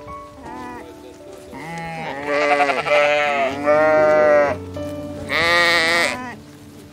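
Sheep bleating: a few short calls, then three long, loud, wavering bleats in the second half, over background music.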